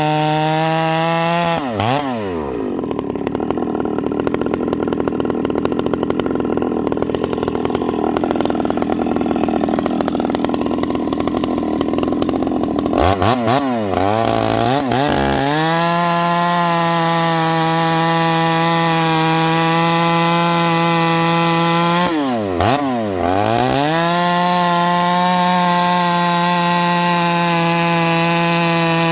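Husqvarna 390 XP two-stroke chainsaw with a Ramhorn aftermarket muffler, running at high revs. About two seconds in the revs drop as the chain goes into wood and cuts for about ten seconds. It then revs up and down a few times and runs wide open, with one brief dip in revs near the end.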